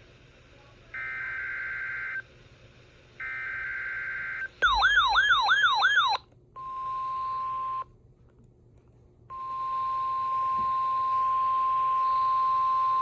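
NOAA Weather Radio weekly-test alert signal. Two buzzy SAME digital header bursts come about a second in and three seconds in. A loud warbling alert tone follows at about five seconds, then a short steady beep-like tone. After a brief gap, a steady alert tone of about 1 kHz starts near nine seconds and holds.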